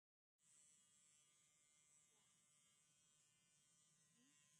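Small electric horse clippers buzzing faintly and steadily while trimming a horse's muzzle.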